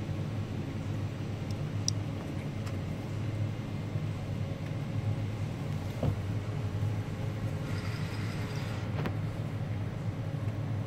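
A steady low mechanical rumble, like a motor running, with a few faint clicks and a brief scratchy hiss near the end.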